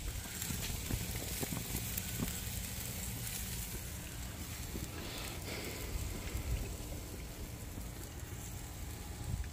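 Pork chops sizzling on a propane gas grill, a steady hiss, under a low, uneven wind rumble on the microphone.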